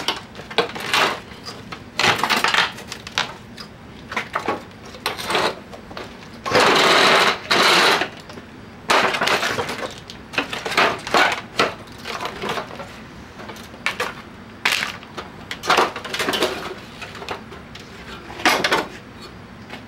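Metal clanks and bangs of a window air conditioner's sheet-metal housing being pried apart with a pry bar, in irregular knocks, with one longer noisy burst of about a second and a half around seven seconds in.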